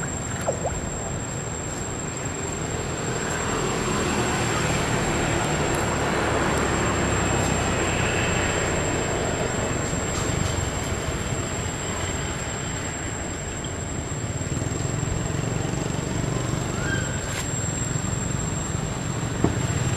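Steady background noise, a low rumble and hiss, with a constant thin high-pitched whine over it.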